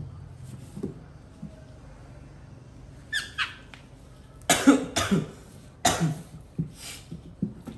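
Baby monkey calling while being held: a short falling squeal about three seconds in, then several short, coarse cries a little later.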